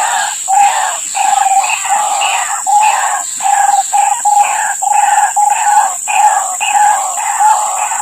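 White-breasted waterhens calling: a loud, unbroken run of repeated notes, about two a second.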